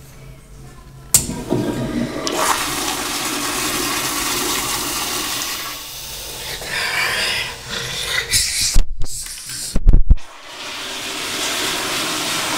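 Commercial tankless toilet flushing through a wall-mounted flushometer valve after its push button is pressed. The valve opens with a sudden whoosh about a second in, and water rushes loudly through the bowl for several seconds. A few loud knocks follow around nine to ten seconds in, then a steadier hiss of water runs on.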